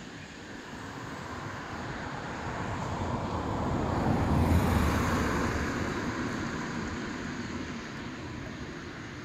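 A car passing on the road, growing louder to a peak about four and a half seconds in, with a brief hiss of tyres as it goes by, then fading away.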